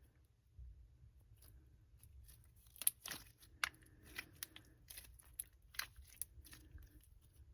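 Glossy slime being pressed and stretched by hand, giving a run of sharp clicks and pops, most of them between about three and six seconds in.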